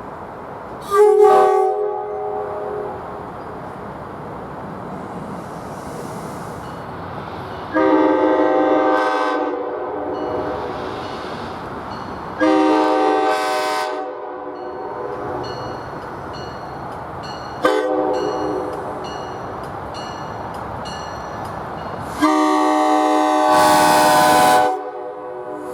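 A SEPTA train's Nathan K5LA five-chime air horn sounding over the rumble of the passing train: a brief blast about a second in, then the long, long, short, long sequence, the standard grade-crossing warning.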